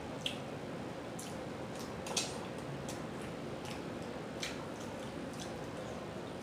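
A person chewing food with the mouth open, making a scatter of short, wet lip-and-tongue smacks at irregular intervals, about one or two a second.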